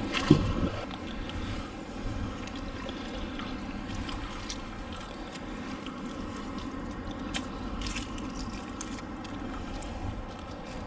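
Magnet-fishing line and finds being worked in canal water, with trickling and scraping, and a sharp knock just after the start.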